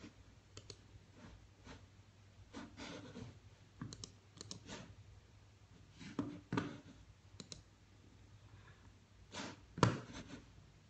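Irregular clicking of a computer mouse, a dozen or more separate clicks spread unevenly, the loudest one near the end, over a faint low hum.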